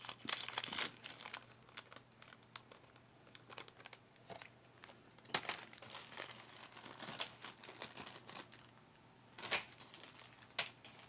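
Crinkly wrapping or packaging being handled by hand, in short irregular bursts of crackling with light taps between.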